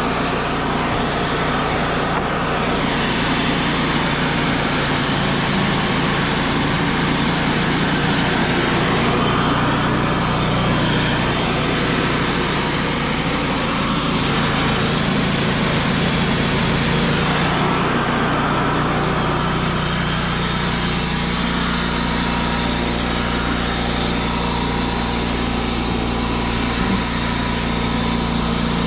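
Wood-Mizer LT35 portable band sawmill running steadily under power, with a bright hiss over the engine that briefly drops away about three times.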